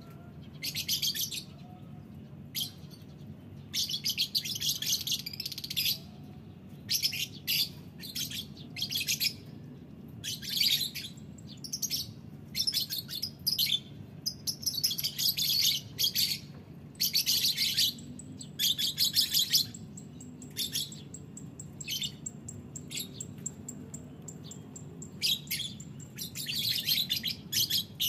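Caged lovebirds chattering in repeated bursts of shrill, rapid chirps a second or two long, with short pauses between, over a faint steady low hum.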